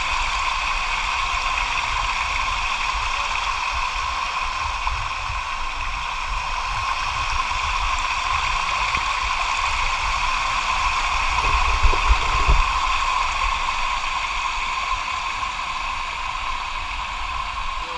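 Shallow stream water rushing and splashing steadily over smooth rock slabs at a small waterfall cascade. A couple of brief low bumps come about two-thirds of the way through.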